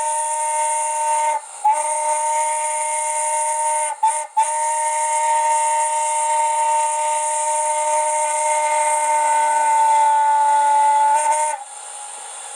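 Digital sound decoder playing an N&W hooter steam whistle through a model locomotive's speaker, blowing the grade-crossing signal: a long blast ends about a second and a half in, then another long blast, a brief toot, and a long final blast that cuts off near the end, leaving a quieter steam hiss.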